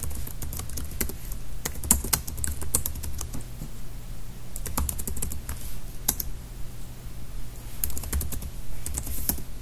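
Typing on a computer keyboard: quick runs of key clicks in three bursts with short pauses between them, over a steady low hum.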